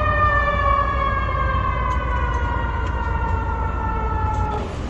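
A siren sounding one long tone that slides slowly down in pitch and stops abruptly near the end, over a steady low rumble of traffic.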